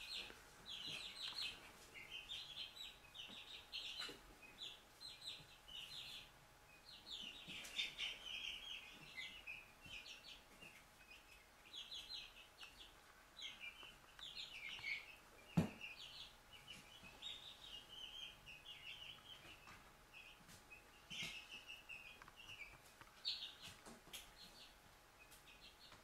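Four-week-old Dominique chicks peeping, in faint quick runs of short high chirps, with a single sharp knock about halfway through.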